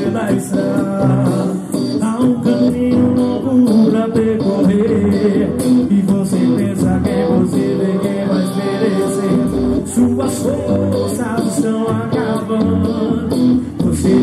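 Evangelical praise band music: a male vocalist singing over electric guitar and keyboard, with a steady beat.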